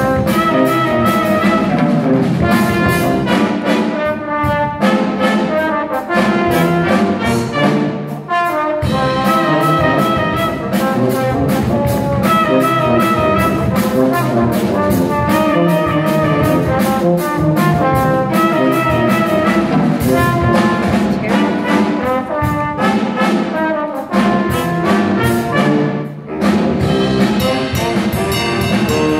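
Small horn ensemble of saxophones, trumpet and tuba playing a funk tune live, with rhythmic punchy brass lines over a tuba bass part.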